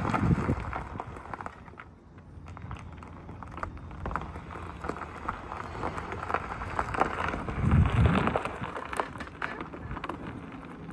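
Tyres of a stripped-down Tesla Model 3 rolling chassis crunching and crackling over gravel as it drives, with a louder swell about eight seconds in.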